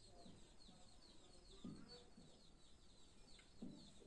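Faint background of hens clucking now and then, with small birds chirping steadily in quick short chirps.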